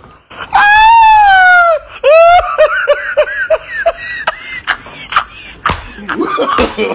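A high-pitched voice: one long wail that sinks slightly in pitch, then a quick run of short rising yelps, about four a second, followed by a few faint clicks and rustling.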